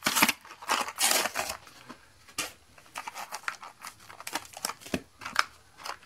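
The cardboard backing of a blister pack is torn and peeled off its plastic shell, with rasping tearing for about the first second and a half. Lighter crinkles and clicks of plastic and booster-pack wrappers follow as the contents are handled.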